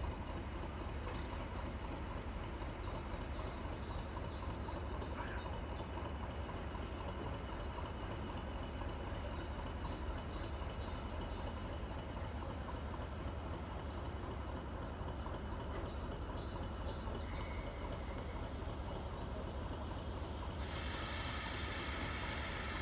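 A train's steady low rumble with faint high chirps above it; about two seconds before the end a higher hum of several steady tones joins in.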